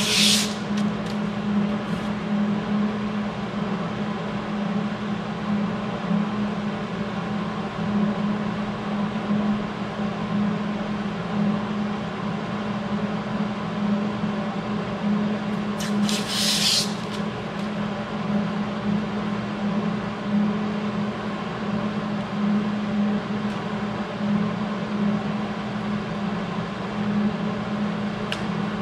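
A steady mechanical hum from shop equipment runs throughout. Two brief crisp rustles, one right at the start and one about halfway through, come as the welding helmet's lens parts are handled.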